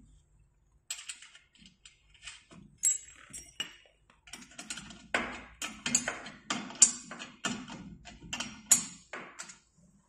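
Quick, irregular clicks and metallic clinks of small bolts and fittings being handled and threaded by hand while the pedal frame of an elliptical trainer is assembled.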